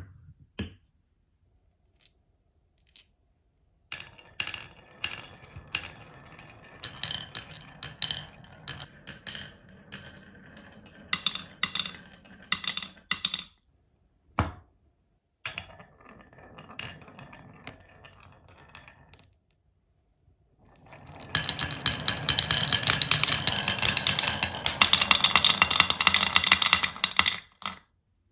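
Glass marbles rolling down the wavy groove of a wooden HABA slope and clicking into a red wooden toy truck bed, with a wooden knock or two at the start as the slope is set down. The marbles come in spells of rolling with many clicks, then near the end a dense stream of many marbles rattles and clinks together, the loudest part.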